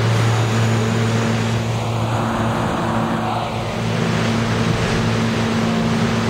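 New York City subway train moving along a station platform: a steady, loud rumble of wheels on rail with a constant low hum.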